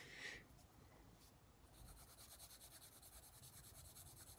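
Faint, rapid scratching of a Brutfuner oil-based coloured pencil shaded back and forth on sketchbook paper while laying down a colour swatch, starting a couple of seconds in.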